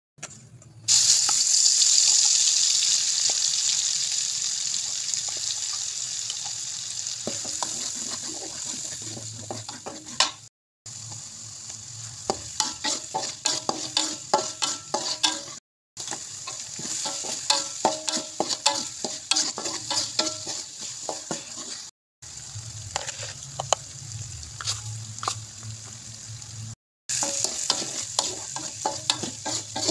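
Spice paste of ground chilies, shallots and garlic hitting hot oil in a wok about a second in, with a loud hiss that slowly dies down. Then it sizzles steadily while a spatula stirs it, scraping and clicking against the wok, the sound cutting out briefly four times.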